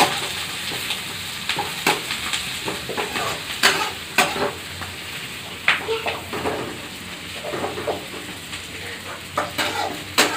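Chopped vegetables frying in oil in a steel kadhai, with a steady sizzle. A metal spatula scrapes and clinks against the pan over and over as they are stirred.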